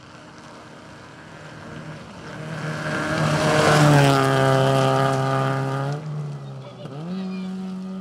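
Small hatchback rally car's engine running hard as it approaches and passes close by on a dirt road, growing louder to a peak about four seconds in, with the hiss of tyres on loose dirt. About six seconds in the engine note drops, then rises again and holds a steady higher pitch as the car drives away.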